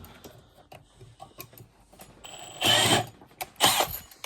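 Cordless power tool motor run in two short bursts, a little under three and about three and a half seconds in, preceded by a brief thin whine, while trying to back out a stubborn engine bolt.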